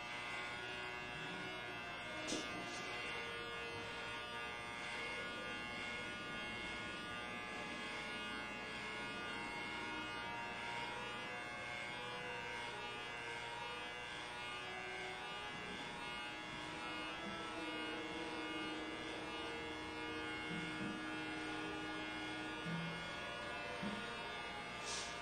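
Corded electric hair clippers running with a steady buzz as they cut short hair on top of the head.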